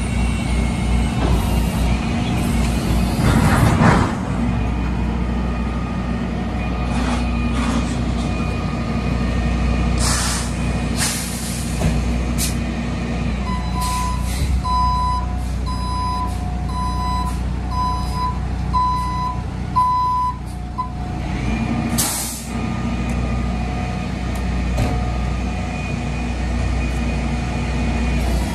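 Rollback truck's engine running steadily, with several sharp hisses of air brakes. Partway through, a backup alarm sounds a run of about eight evenly spaced beeps.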